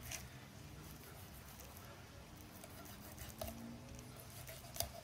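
Cleaver-style knife scoring the skin of a whole snapper on a wooden cutting board: quiet slicing with a few faint soft clicks as the blade tip touches the board, the sharpest near the end.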